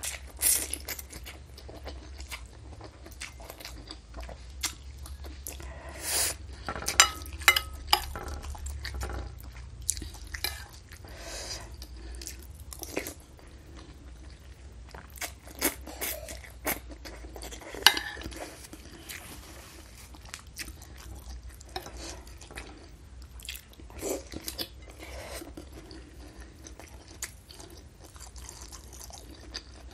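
Close-miked eating sounds: noodles slurped from bakso meatball soup and chewed, with irregular wet smacks and a few louder slurps.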